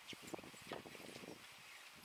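Punctured lithium polymer battery venting smoke: a faint steady hiss, with a cluster of soft crackling pops in the first second and a half.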